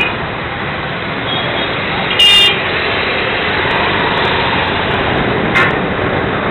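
Busy street traffic heard from a moving motorcycle: steady engine and road noise, with one short vehicle-horn honk a little over two seconds in.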